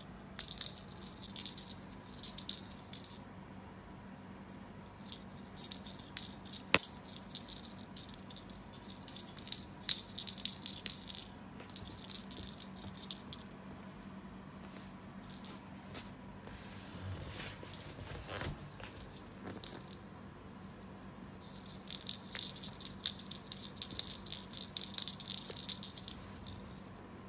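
Small metal jingling, shaken in repeated bursts of a few seconds each with short pauses between.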